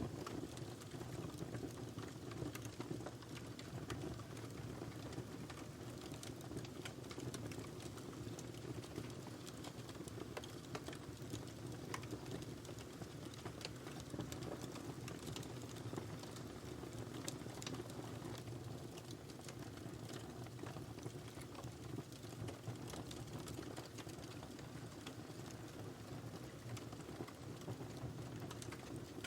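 Wood fire burning in a fireplace: a steady low rush of flames with many small crackles and pops scattered throughout.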